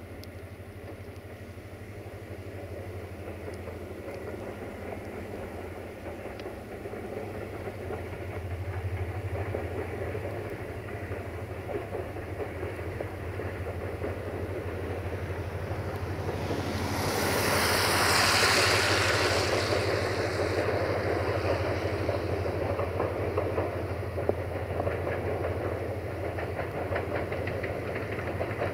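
CFR class 64 "Jimmy" diesel locomotive hauling a passenger train as it approaches: a steady low engine drone grows louder. A loud rushing noise comes for about three seconds past the middle, and then the wheels click over the rail joints in a steady clatter.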